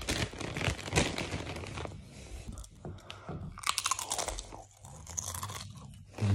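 Chips being bitten and chewed close to the microphone: a run of crisp, irregular crunches, with a cluster of sharper crunches about three and a half seconds in.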